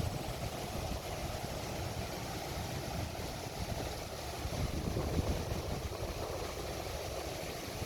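Sea waves washing on a beach as a steady rush, with wind buffeting the microphone in a gusty low rumble.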